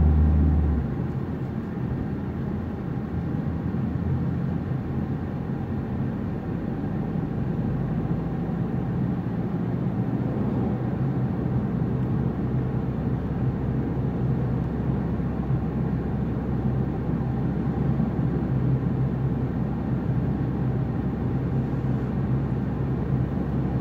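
Steady road and engine noise inside a car cabin at road speed. A deep hum is loudest at the start and drops away about a second in.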